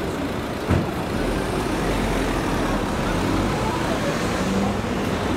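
Urban road traffic with an articulated Iveco city bus's engine running at low speed as it moves slowly forward among idling cars. A single brief knock about three-quarters of a second in.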